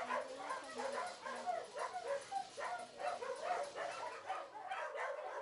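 Dogs barking and yipping in a run of short, repeated barks, several a second.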